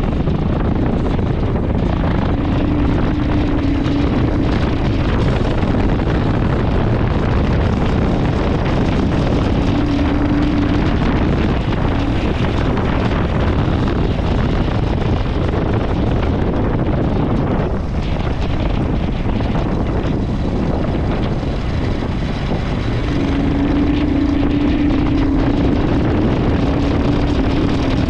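Royal Enfield Himalayan 411's single-cylinder engine running steadily under load on a rough off-road ride, with wind on the microphone. A steady hum in the engine sound comes and goes, clearest in the last few seconds.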